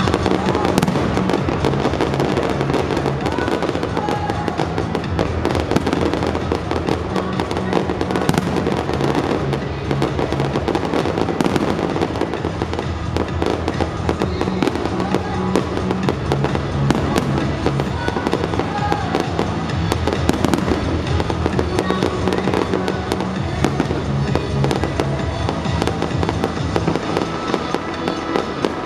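Aerial fireworks bursting in a rapid, continuous barrage of overlapping bangs and crackles, with music playing loudly underneath.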